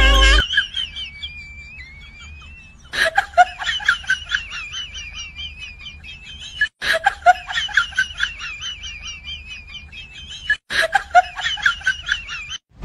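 A high-pitched, chattering giggle sound effect, dropped in three times with abrupt cuts between, over a faint low hum.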